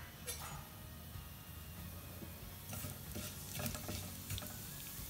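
Mustard and cumin seeds frying faintly in hot oil in a metal kadai, with a few small crackles. About halfway through, a spatula stirs them and scrapes against the pan.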